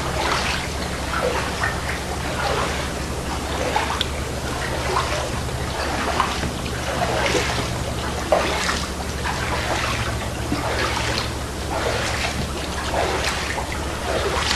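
Water trickling and splashing, with a steady low hum underneath.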